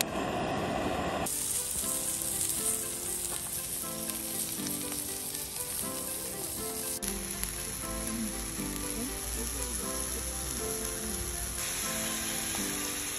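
Beef sizzling as it grills, a steady frying hiss, with soft background music of held notes underneath.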